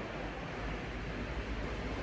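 Steady background hiss with a low rumble underneath, and no distinct event.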